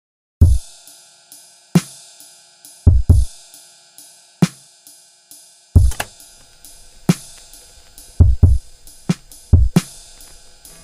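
Music: a drum-kit beat of heavy kick-drum hits and sharp cymbal and snare strokes, with light hi-hat ticks at an even pulse.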